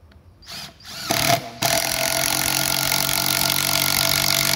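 Makita DTD156 18V impact driver driving a long screw into a wooden beam. After a couple of short trigger blips, it starts running hard about a second in. From just after that it keeps a loud, steady hammering as the screw goes in.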